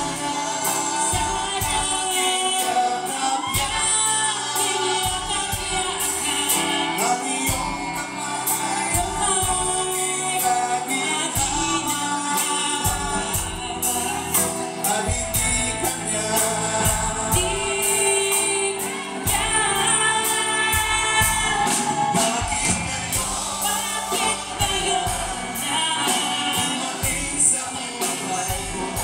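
Live band playing a song: female and male vocals with electric guitar and bass guitar over a steady beat.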